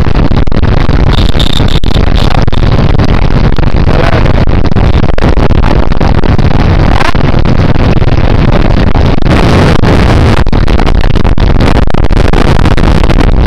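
Motorcycles running at road speed with heavy, steady wind noise on the microphone, the loudest part in the low range, and no change in pitch or level.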